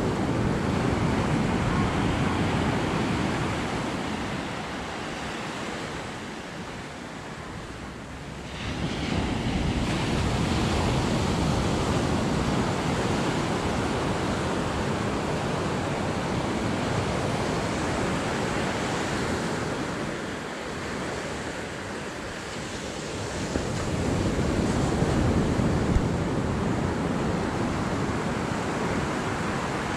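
Ocean surf breaking and washing up a sandy beach, a steady rush that ebbs and swells as the waves come in, with wind buffeting the microphone.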